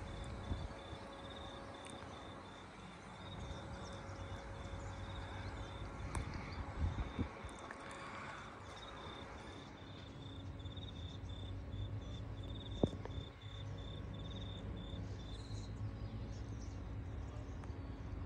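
An insect chirping: a high-pitched, evenly repeated pulsing that stops about fifteen seconds in, over a steady low outdoor rumble. There is a single sharp click about thirteen seconds in.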